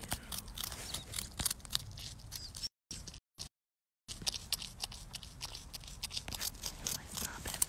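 North American porcupine chewing hard food close to the microphone: a fast, irregular run of crisp crunches. The sound cuts out completely for about a second and a half, a little under three seconds in.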